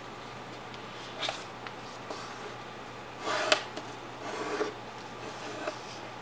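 Paper being folded and creased by hand on a hard tabletop: a few short rustles and scrapes, the loudest about three and a half seconds in with a sharp snap. A steady low hiss lies underneath.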